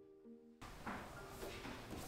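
Soft piano music with single notes ringing, breaking off abruptly about half a second in. After that comes a faint, even hiss with quiet held music tones and a few light soft rubbing sounds.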